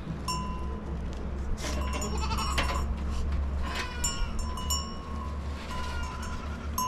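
Goats bleating, with a repeated light ringing over a steady low rumble.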